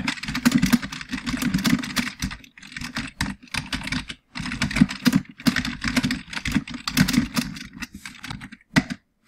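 Computer keyboard typing in fast runs of keystrokes, broken by a couple of short pauses, stopping shortly before the end.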